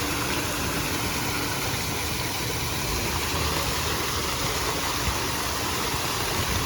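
Wind buffeting the microphone: a steady rushing noise with an uneven low rumble underneath.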